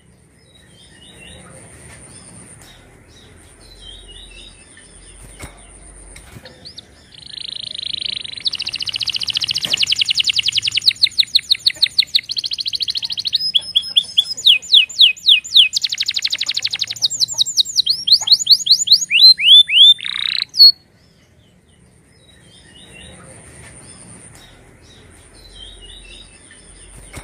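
Domestic canary singing: soft twittering, then from about seven seconds in a loud song of fast trills and rapid repeated sweeping notes. The song ends suddenly after about twenty seconds, and soft twittering follows. A faint steady high tone sounds underneath.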